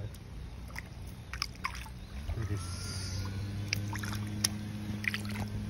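Scattered small clicks and rustles of a rubber-mesh landing net being handled with a freshly caught trout in it. A steady low hum comes in about two seconds in and carries on underneath.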